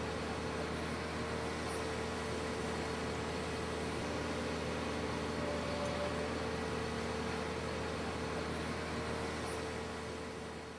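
Heavy construction equipment engine running steadily, a constant drone with a steady whine over it, fading out near the end.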